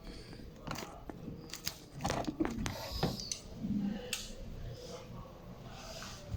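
Scattered small clicks, scrapes and crunches of hands and tools working stiff wire into a fire alarm module's terminals.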